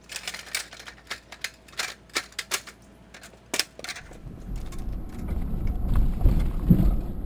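A run of irregular sharp clicks, like typing or tapping, for the first three and a half seconds. From about four seconds in, a low vehicle rumble builds.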